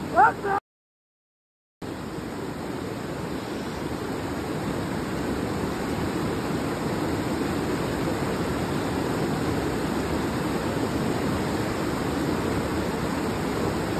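Fast, shallow mountain river rushing over rocks, a steady rush of whitewater. Near the start a person's brief rising cry is heard, then the sound cuts out completely for about a second before the rushing water resumes.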